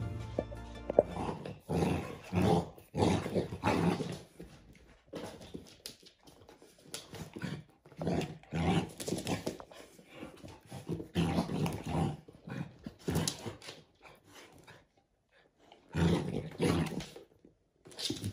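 American bully dogs play-growling in short, repeated bursts while tugging on a rope toy, with a pause of a second or two near the end before the growls start again.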